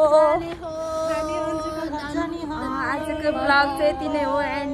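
A woman singing long, drawn-out notes that waver and bend in pitch.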